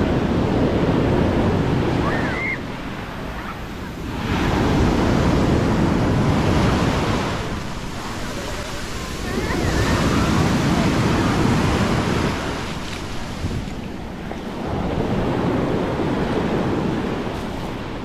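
Sea waves breaking and washing up on the beach, swelling and falling back about every four to five seconds, with wind rumbling on the microphone.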